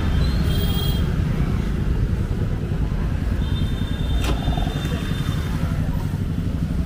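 Busy city street: a steady rumble of road traffic with people talking nearby. A thin high tone sounds for about a second and a half midway, and a sharp click comes a little after four seconds in.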